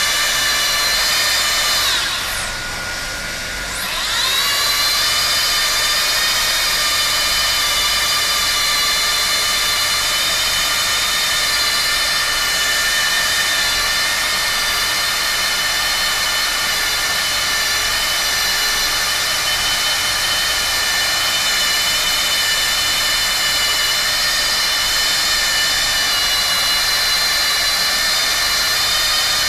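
Handheld hot-air tarpaulin welder running, its motor giving a steady high-pitched whine with many tones over a rush of noise. About two seconds in the whine sags and fades, and about two seconds later it spins back up to its steady pitch.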